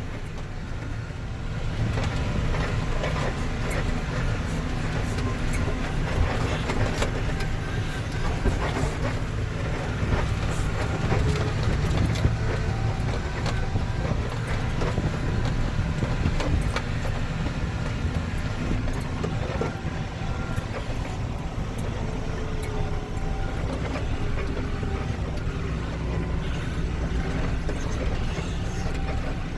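Heavy vehicle running: a steady low engine drone with continual rattling and clatter.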